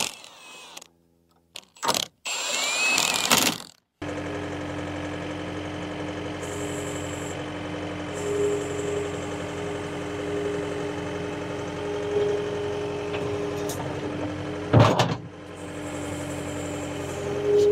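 A brief rising whir near the start, then an engine running steadily at idle. About three-quarters of the way through there is a single loud bang.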